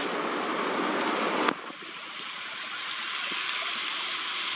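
Steady outdoor background hiss with no animal calls. A click comes about a second and a half in, and the low part of the hiss cuts off abruptly after it.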